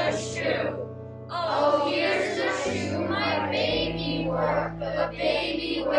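Music: voices singing a slow song over sustained low accompaniment notes, the low note shifting about two and a half seconds in and again about a second later.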